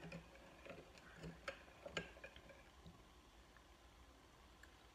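Faint light clinks of a metal spoon against a glass bowl while stirring liquid, a handful of separate ticks in the first two seconds.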